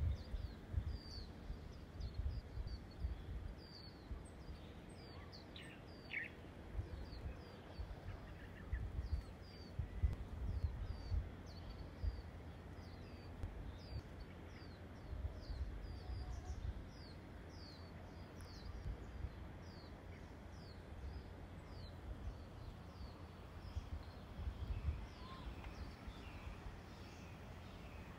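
A small bird giving short, high chirps that drop in pitch, about one or two a second, over low rumbling gusts of wind on the microphone.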